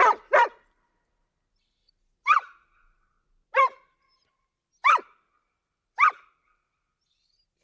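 A dog barking: a quick double bark, then four single sharp barks at an even pace of about one every second and a quarter, with silence between them.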